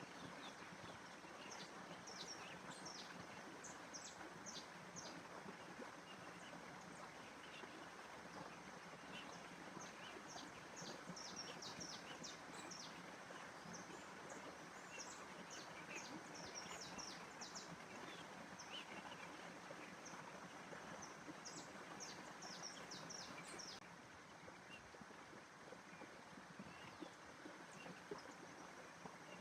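Faint nature ambience: small birds chirping in quick runs of short high notes over a steady background rush. The chirping thins out near the end.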